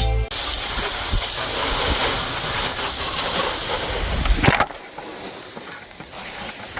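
Water spraying from a hose nozzle in a steady hiss, with a sharp knock about four and a half seconds in, after which the spray is softer.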